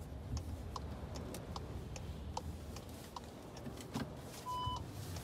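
Inside a moving car: a steady low rumble of wind and road noise, with the indicator ticking evenly a little faster than once a second. A short electronic chime sounds near the end.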